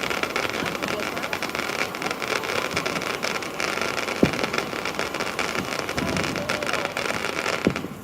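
Fireworks crackling: a dense, steady crackle of many tiny pops, with two sharper pops about four seconds in and near the end, cutting off suddenly as the firework finishes.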